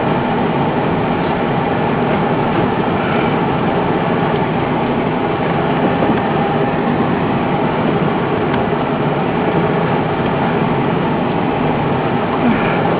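Steady engine and road noise heard inside a Ford 15-passenger van as it drives a rough dirt fire road.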